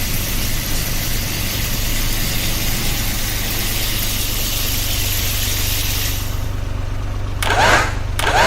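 A steady mechanical rumble like an engine running, with a constant low hum and a high hiss that fades out about six seconds in. Two quick rising whooshes follow near the end.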